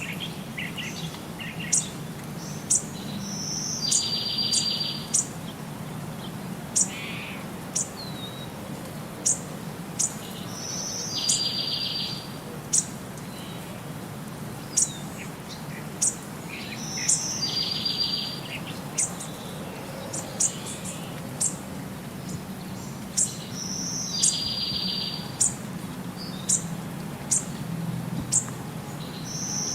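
Birds chirping: many short, very high chirps, with a buzzy trill of about a second that repeats about every six to seven seconds. A steady low hum runs underneath.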